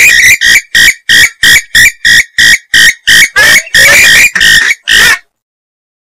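Swamphen (mandar biru) calls: a loud, rapid series of short harsh notes, about three a second, that stops about five seconds in. It is the breeding-season call played as a lure to draw swamphens in.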